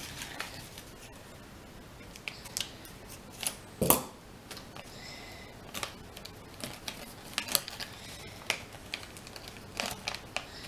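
A small plastic toy package being worked open by hand: scattered snips and clicks with a little crinkling, the sharpest click about four seconds in.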